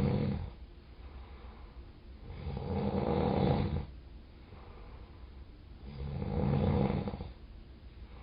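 Beast-like snoring in a slow rhythm. One snore tails off right at the start, then two full rattling snores come about two and six seconds in, each about a second and a half long, with quiet gaps between.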